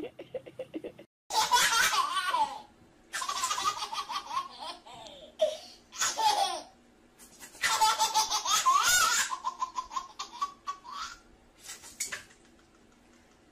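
A baby laughing hard in four bouts of rapid, high-pitched belly laughter, with short pauses between them.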